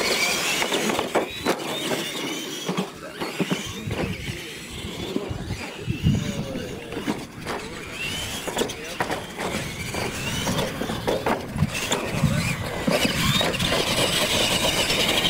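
Radio-controlled Tamiya Clod Buster-style monster trucks racing on a dirt track: their electric motors and gears whine, rising and falling with the throttle, with scattered knocks and clatter as the trucks bounce over the jumps.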